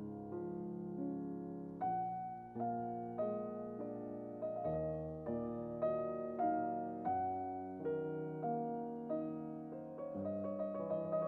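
Background piano music: slow notes struck one after another, each fading away, with chords held underneath.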